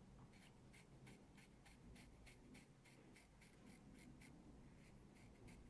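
Dermaplaning razor blade scraping over the skin of the cheek, shaving off fine facial hair. It makes faint short strokes, about three or four a second.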